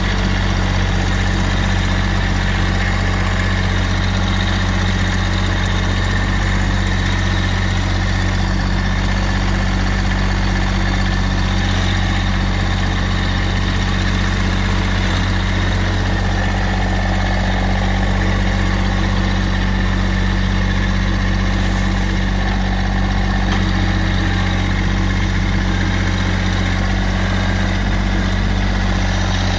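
Massey Ferguson GC1723E compact tractor's three-cylinder diesel engine running steadily, heard close from the operator's seat.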